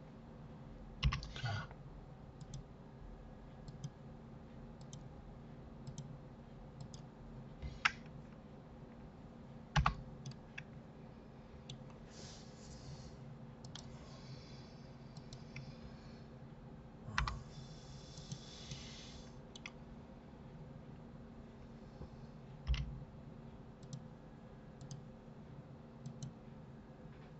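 Computer mouse clicks and keyboard key presses, scattered and irregular, with a few louder knocks, over a steady low electrical hum.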